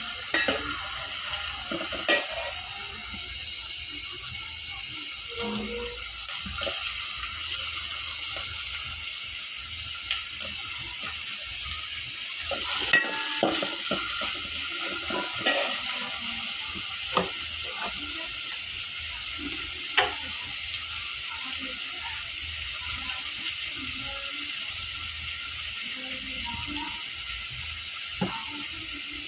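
Food frying in oil in a pan, a steady sizzle, with occasional knocks and scrapes of a utensil stirring it.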